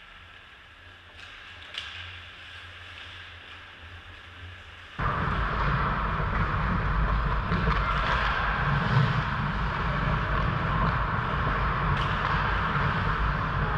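Ice hockey rink noise picked up by a goalie's helmet-mounted GoPro: a steady rush of noise, much quieter for the first five seconds, then jumping abruptly back up, with one sharp click about twelve seconds in.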